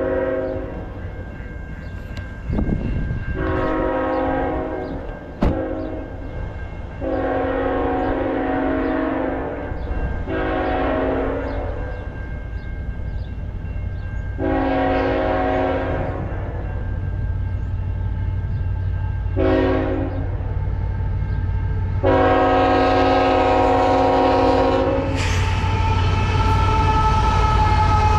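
CN diesel freight locomotive sounding its multi-chime air horn as it approaches: a series of long and short blasts, the longest, about three seconds, near the end. The locomotive then passes close by with a loud diesel rumble and a steady whine that drops slightly in pitch as it goes by.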